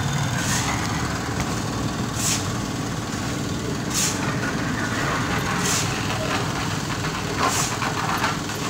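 Steady road traffic with trucks and other vehicles running past, under which a short hissing swish repeats about every second and three-quarters.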